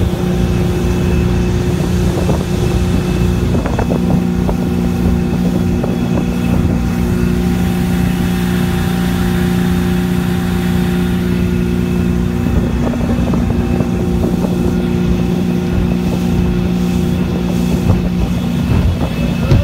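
Speedboat engine running steadily at speed, a constant drone, with wind and water rushing past the hull beneath it.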